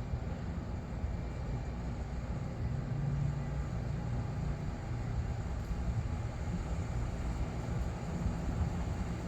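HVAC equipment running: a steady low hum and rumble with a faint held tone in it, unchanging throughout.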